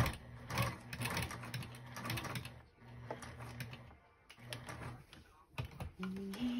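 Electric sewing machine stitching through layered denim, batting and flannel, its motor humming in spurts: a run of about two and a half seconds, a short pause, about a second more, then a brief burst, followed by a few clicks.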